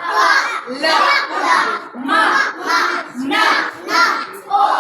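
A group of young children chanting loudly in unison, in a steady rhythm of shouted syllables.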